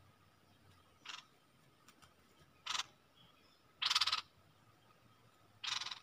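Bulbul (Thai nok dok taeng, Malay merbah) calling as a lure bird: four short calls spaced one to two seconds apart, the third the longest and loudest.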